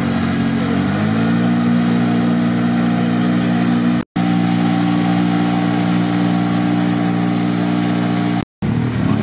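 Quad bike (ATV) engine revved hard and held at steady high revs, stepping up in pitch about a second in, as the ATV churns through deep mud with its wheels spinning. The sound breaks off briefly twice.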